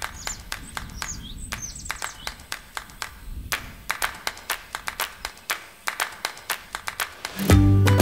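Sharp handclaps in a quick, uneven series, then a music track with a heavy bass comes in about seven and a half seconds in.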